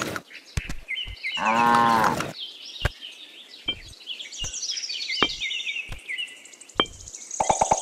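A cow moos once, about a second and a half in, over high repeated chirping. Scattered sharp clicks come from miniature clay bricks being picked up and set down.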